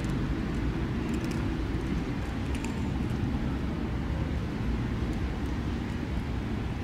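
Steady low outdoor rumble, with a faint motor hum that fades out about a second and a half in, and a few faint small ticks.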